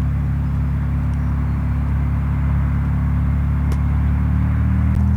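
Light aircraft's piston engine running at low power with a steady hum, its pitch stepping up slightly near the end.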